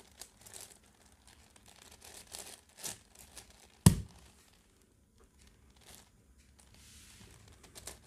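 Plastic clicking and rattling of a 10x10x10 Rubik's cube as its slices are turned by hand, with one sharp, much louder knock about four seconds in.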